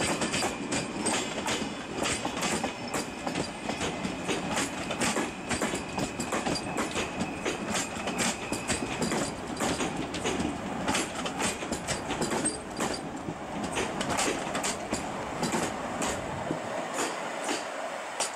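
Passenger train running through the station, its wheels clattering over rail joints and points in a rapid, uneven run of clicks over a broad rumble. A thin steady high wheel squeal runs through the first half, and the low rumble drops away near the end.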